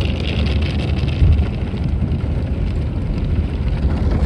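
Tunnel car wash's soft-cloth mitter curtain and wash water sweeping over the car, heard from inside the cabin as a steady low rumble and swish, with a brighter hiss in the first second or so.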